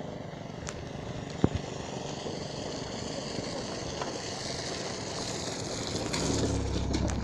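Bicycle rolling over a wet, potholed dirt road, a steady rolling noise with a sharp knock about a second and a half in. A car approaches and passes close by, its noise swelling and loudest near the end.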